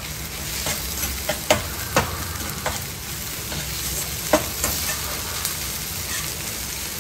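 Chopped shallots sizzling in an iron kadai while a steel perforated ladle stirs them, the ladle scraping and clinking against the pan several times, sharpest about four seconds in.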